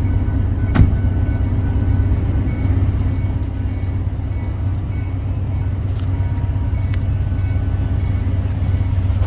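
Steady low engine rumble, with a sharp click about a second in and a couple of fainter clicks later.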